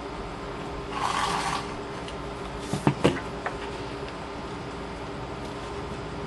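A Glue Glider Pro tape runner drawn once across paper, a short rasp about a second in, laying down adhesive. Soon after come two sharp knocks and a lighter tap as the plastic dispenser is set down and the paper handled on the tabletop, over a steady background hum.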